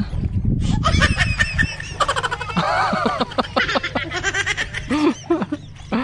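People laughing and giggling, with bits of excited talk; a low rumble sits under the first second and a half.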